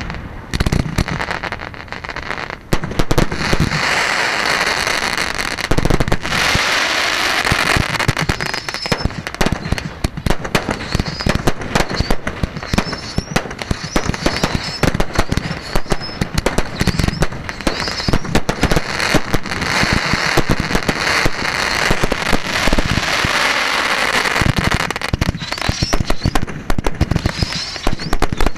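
Fireworks display: a rapid, continuous run of shell bursts, bangs and crackling, with hissing and short high rising whistles scattered through it.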